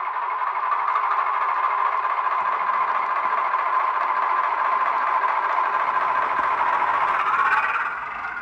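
Model Class 07 diesel shunter's DCC sound decoder playing its engine sound through a small sugarcube speaker as the locomotive runs, a steady mechanical drone. The engine note rises briefly near the end, then drops away.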